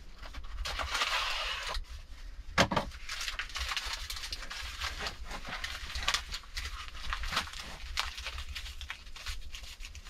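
A small packet being handled and torn open by hand: a dense run of crinkling, crackling packaging, with a louder snap about two and a half seconds in.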